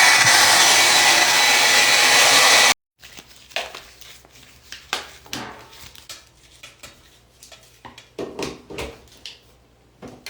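Hair dryer blowing steadily, switched off abruptly less than three seconds in. Scattered light knocks and clicks follow.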